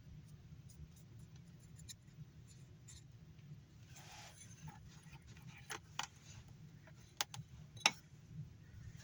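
Small hard objects handled on a workbench: a brief rustle about four seconds in, then a handful of sharp clicks and taps, the loudest two near the end. A steady low hum runs underneath.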